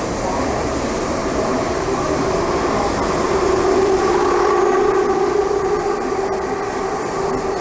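MTR M-train electric multiple unit running at speed in a tunnel, heard from inside the car: a steady rumble of wheels on rail, with a whine held on a few steady pitches. This whine is the howl the uploader singles out in car A237.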